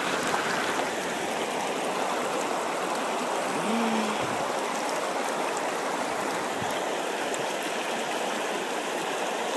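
River water flowing steadily over a rocky bed.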